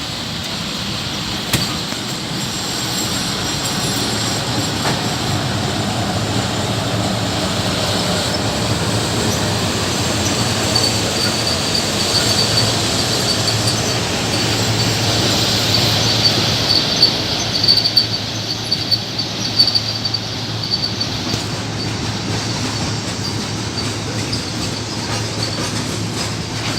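Freight train hauled by a VL10U electric locomotive rolling into a station: steady rumble of wheels on rail with a low hum. From about 11 to 21 seconds a wavering high-pitched wheel squeal rises over it, with a few sharp knocks near the middle.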